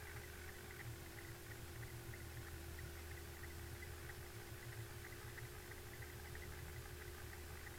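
Steady low mechanical hum with a constant mid-pitched tone and faint quick ticking, unchanging throughout.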